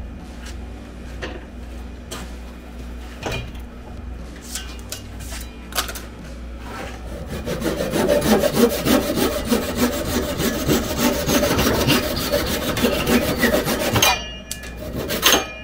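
Handsaw cutting off the protruding end of a maple dowel wedge set in the top of an axe handle. A few light knocks come first, then fast, steady back-and-forth sawing starts about halfway in and stops suddenly about a second before the end.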